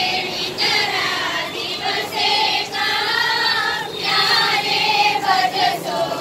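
Many girls' voices singing together in unison as they march, in long held notes with short breaks between phrases.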